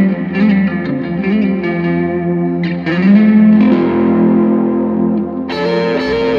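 Electric guitar lead improvisation on a Mexican-made Fender Stratocaster with Tupelo Bear pickups, played through a Knight of Tone kit pedal into an Ace Colt amp. It has picked runs and string bends, with one note bent up and held for a couple of seconds before a new phrase starts near the end.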